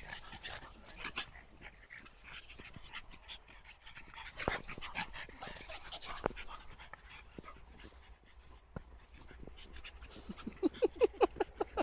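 Small dogs panting and scuffling as they play and dig in sand, with scattered short scrapes and clicks. Near the end comes a fast run of short, loud, pitched huffs lasting about a second.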